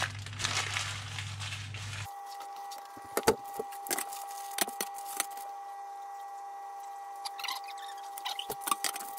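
Newspaper rustling and crinkling as sheets are handled and laid down, followed by scattered sharp crackles and taps of the paper.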